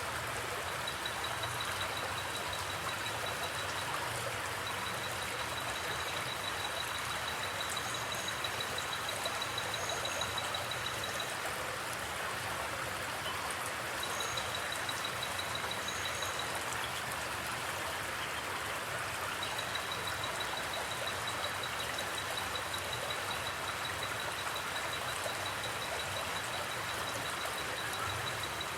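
Forest creek water flowing and babbling steadily. A high, rapidly pulsing trill, likely an insect or frog, comes and goes over it, with a few brief higher chirps.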